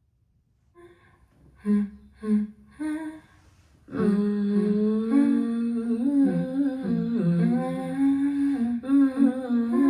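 Recorded music played back through Bowers & Wilkins 606 S3 bookshelf speakers. A few short, separate notes come first, then about four seconds in, layered voices begin humming long held notes that shift in pitch.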